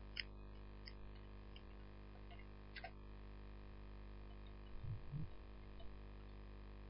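Faint steady electrical hum with a few soft clicks of a computer keyboard and mouse, and a brief low sound about five seconds in.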